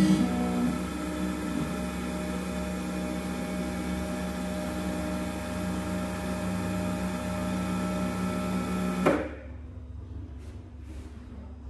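Rownd desktop CNC lathe running a turning program on a wooden workpiece: a steady motor hum with a whine over it, which cuts off suddenly about nine seconds in as the machine stops, leaving a faint hum and a few light clicks.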